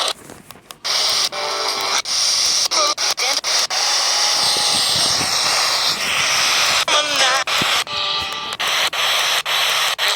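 Two-way radio receiver static: a loud hiss chopped by frequent abrupt dropouts, with brief garbled, warbling voice fragments breaking through.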